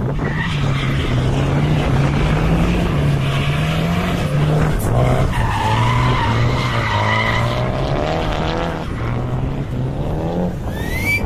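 Drift car's engine revving up and down repeatedly as it slides through a corner, with the tyres squealing.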